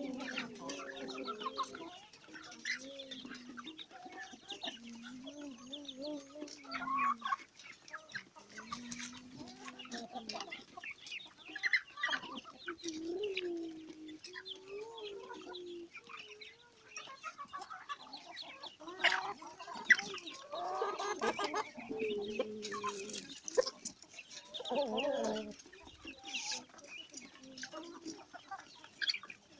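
A flock of improved village chickens and Black Australorp hens clucking and calling over one another: many short, low, wavering calls with sharper, higher squawks mixed in. The calling grows louder about two-thirds of the way through.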